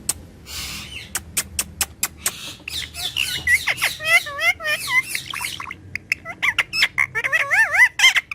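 Parrot vocalising: a run of sharp clicks and a brief hiss, then from about three seconds in a string of warbling, wavering whistles and squawks.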